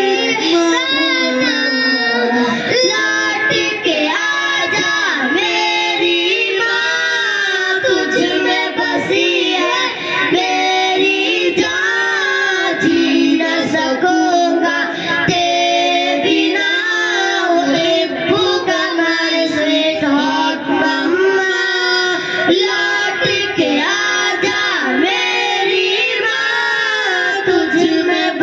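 Boys' voices singing an Urdu nazam into microphones, a continuous sung melody with no break.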